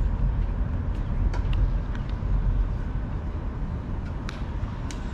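Steady low outdoor rumble with a few faint sharp clicks.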